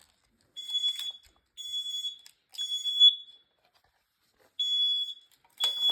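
Smoke alarm sounding its temporal-three fire alarm, set off by aerosol smoke-test spray. It gives three high-pitched, half-second beeps about a second apart, pauses for about a second and a half, then starts the next group of three.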